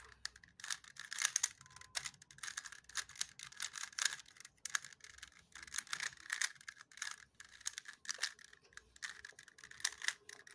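Plastic Windmill cube puzzle being scrambled by hand: quick, irregular clicking and clacking as its layers are turned one after another.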